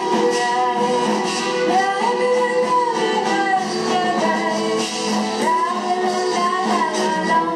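Music with a singing voice over strummed, plucked guitar.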